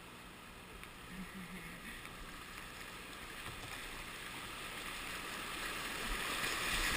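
Rushing white water of a small Class 2 creek rapid, growing steadily louder as the kayak runs down into it.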